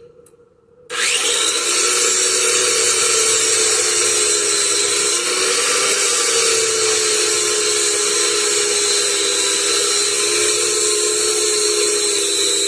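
A power tool's motor switches on about a second in and runs steadily with a whine that wavers slightly.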